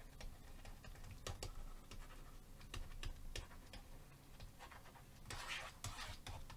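Faint taps and scratches of a stylus writing on a pen tablet, a string of short clicks with a longer scratchy stroke a little after five seconds.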